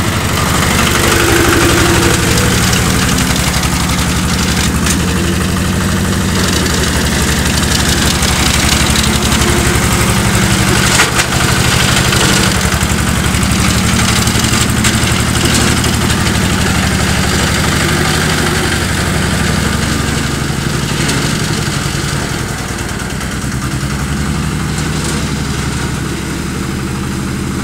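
Engine of a homemade mini-tractor converted from a Zubr walk-behind tractor, running steadily at low revs as the tractor drives slowly, with one sharp click about halfway through.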